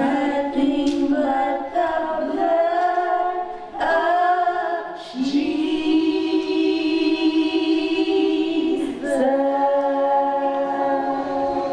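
Several voices singing a song together, holding long notes.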